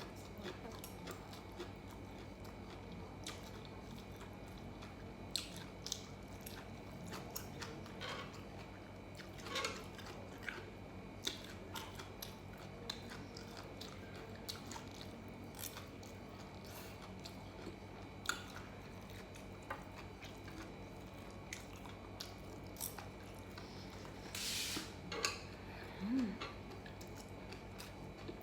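A person chewing and biting food close to the microphone: irregular wet clicks and small crunches, with a louder burst of chewing noise near the end, over a faint steady hum.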